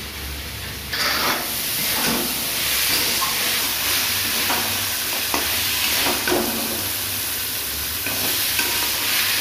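Boiled chickpeas frying in spiced masala in an aluminium kadai, sizzling steadily from about a second in, while a steel spatula scrapes the pan and turns them over every second or so. This is the sauté-until-dry (kosha/bhuna) stage of the masala.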